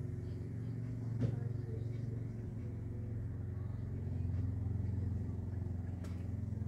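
Battery-powered lawn mower running steadily at an even low hum, with a short knock about a second in.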